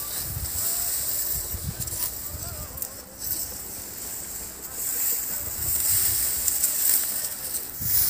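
Wind gusting over the microphone in uneven low rumbles, over a steady high hiss of wind through dry reeds.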